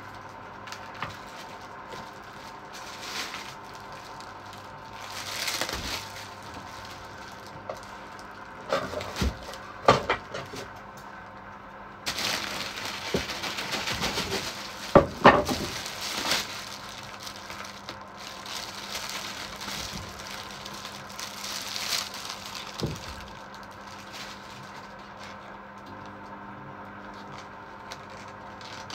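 A head of cabbage being cut with a kitchen knife on a wooden cutting board: crisp cracks and crunches as the blade splits the firm leaves, loudest about ten and fifteen seconds in.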